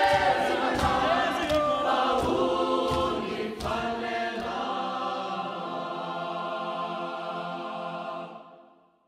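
Background music: a choir singing over sharp percussive beats, which stop about four seconds in, leaving a long held chord that fades away near the end.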